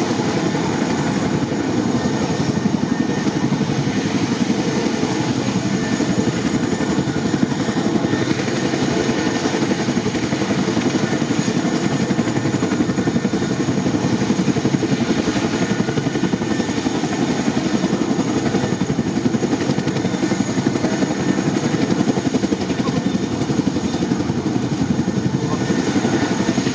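CH-47J Chinook tandem-rotor transport helicopter running with a steady, rapid rotor beat over turbine noise.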